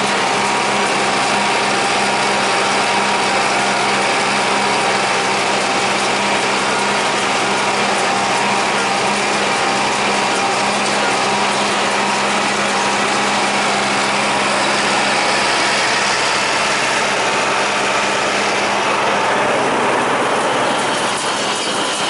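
John Deere 3020 tractor engine running steadily under load, pulling a John Deere 336 small square baler whose pickup and baling mechanism clatter along with it.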